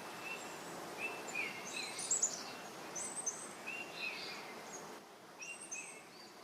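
Birds chirping: short, repeated high notes with quick pitch flicks, a few times a second in clusters, over a steady background hiss.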